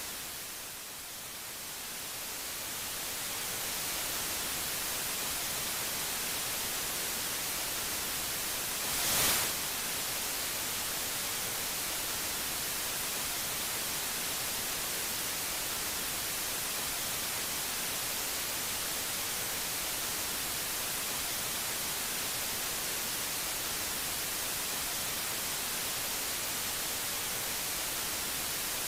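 Steady static hiss, a little softer for the first few seconds, with one short louder burst of hiss about nine seconds in.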